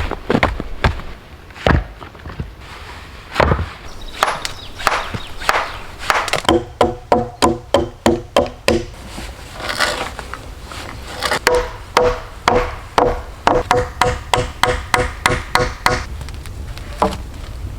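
Hand tools striking wood: scattered knocks, then two fast runs of blows at several a second, each with a short ringing tone.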